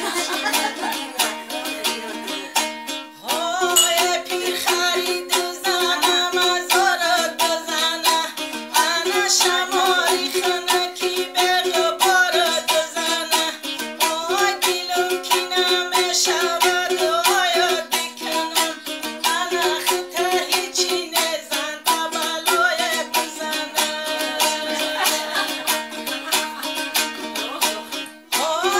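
A woman singing a folk song to her own fast, steady strumming on a long-necked plucked lute, the strumming dropping out briefly about three seconds in.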